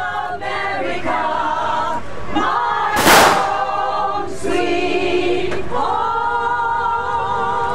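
A group of voices singing a song together, a women's vocal group with the audience singing along. About three seconds in, a brief loud rushing noise cuts across the singing.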